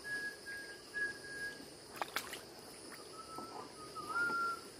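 Steady high-pitched insect chorus, with a long, nearly flat whistled note at the start and another near the end. A few sharp clicks come about two seconds in.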